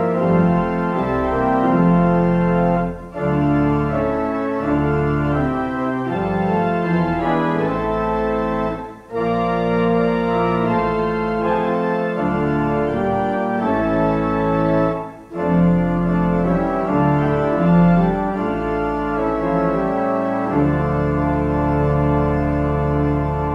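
Church organ playing slow, sustained chords over a deep pedal bass, with brief breaks between phrases about every six seconds, ending on a long held chord.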